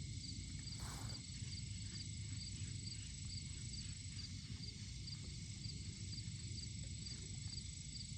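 Spinning fishing reel being cranked, a faint regular clicking about three times a second, over a steady low rumble of wind or handling on the microphone. A faint high chirp repeats about twice a second above it.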